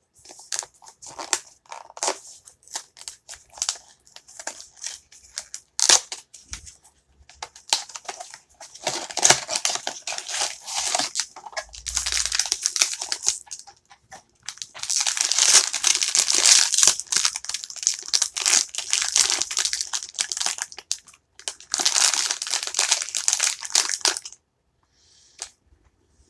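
Blind-box packaging being torn open and crinkled by hand: scattered clicks and rustles, then long stretches of dense crinkling about halfway through and again near the end.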